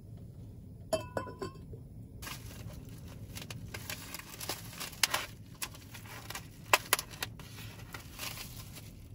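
A lid set down on a clay pot with a few clinks that ring briefly, about a second in. Then comes crinkling and rustling of thin plastic: cling film pulled off a foam food tray by hands in disposable plastic gloves, with sharp crackles throughout.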